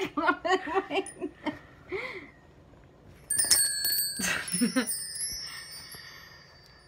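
A metal chime is struck about three seconds in, and several high bell-like tones ring out together and fade slowly over about three seconds.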